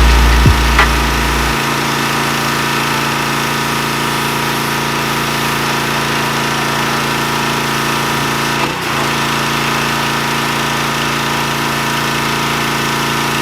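An engine or motor running steadily, with a heavy deep rumble that drops away about a second and a half in.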